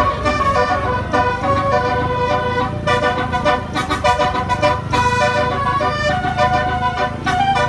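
Telolet multi-tone horn playing a tune: a string of pitched horn notes changing step by step, with a low rumble underneath.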